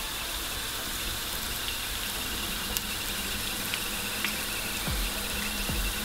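Starch-coated eggplant cubes frying in hot oil in a pan: a steady sizzle with scattered small crackles.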